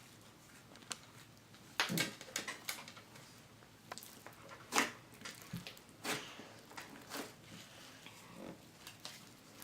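Slime being poked and squished by hand: scattered soft wet clicks and squelches, with louder ones about two seconds in and near five seconds.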